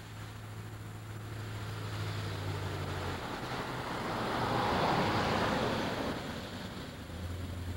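A vehicle passing by on a road, its noise swelling to loudest about five seconds in and then fading away.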